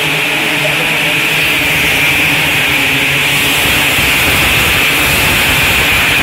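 A pack of 270-class micro sprint cars racing on a dirt oval, their engines blending into one steady, loud drone.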